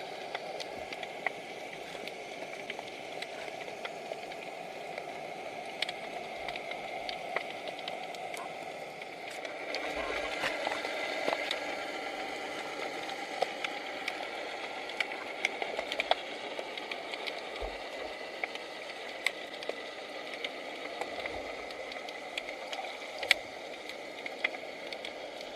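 Underwater ambience picked up by a submerged camera: a steady hiss with scattered sharp clicks and crackles, growing a little louder for a couple of seconds about ten seconds in.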